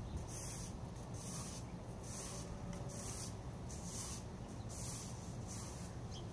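Broom bristles swishing across tiled paving in regular sweeping strokes, about one a second, over a low steady hum.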